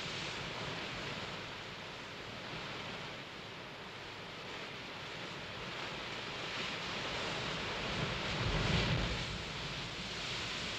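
Sea surf washing and breaking in the shallows, with a louder wave surging about eight seconds in.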